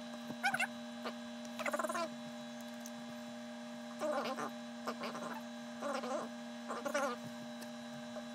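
A steady electrical hum, with about six short squeaky chirps that bend up and down in pitch.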